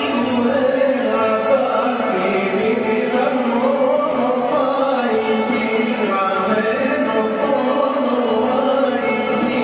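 Greek folk dance music, a singing voice over instruments, playing steadily.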